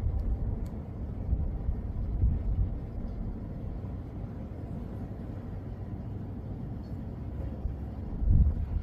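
Low, steady rumbling outdoor background noise, with no clear event standing out.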